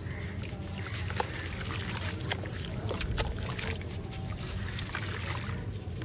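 Gritty sand-cement cylinder crumbling in wet hands: soft crunching with a few sharp crackles as pieces break off, and grit trickling and dribbling into water.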